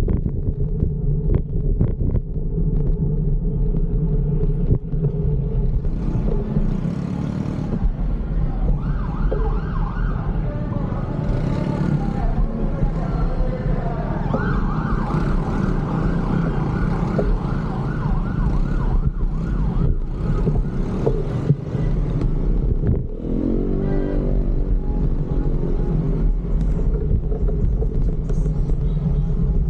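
Steady road-traffic rumble, with a siren sweeping up and down over and over for a stretch in the middle.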